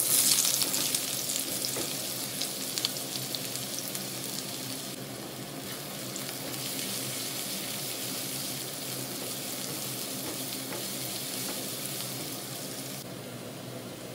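Sliced onions hitting hot oil in a nonstick pan: a sudden loud sizzle, then steady frying sizzle as they are stirred, with light scrapes and taps of the spatula in the first few seconds. The sizzle eases a little near the end.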